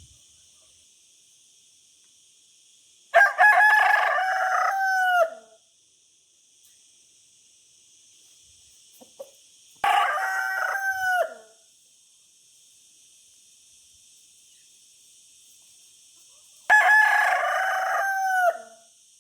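Rooster crowing three times, each crow about one and a half to two seconds long, several seconds apart, with the pitch dropping at the end of each.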